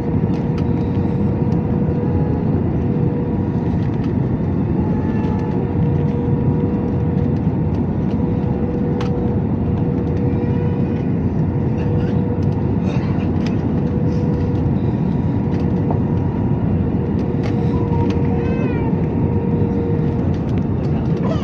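Steady roar inside the cabin of an Airbus A320-family airliner on final approach, its jet engines and the airflow over the extended flaps, with a steady hum running through it.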